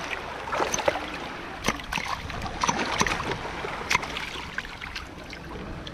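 Shallow seawater splashing and sloshing around hands and a metal rod digging among rocks for hermit crabs, with irregular sharp clicks and scrapes.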